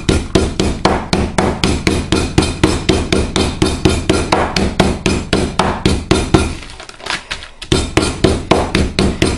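Meat mallet pounding a pork cutlet inside a plastic zip-top bag to flatten it thin: rapid repeated strikes, several a second, with a short pause about seven seconds in.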